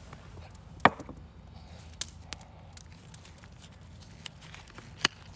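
Kitchenware handled on a wooden bamboo cutting board: a loud sharp knock about a second in, a few lighter clicks, and another sharp knock near the end, as a glass mixing bowl is set down on the board.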